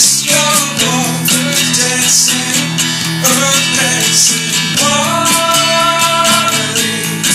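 Band music led by strummed guitar over a steady drum beat, with a long held note from about five seconds in.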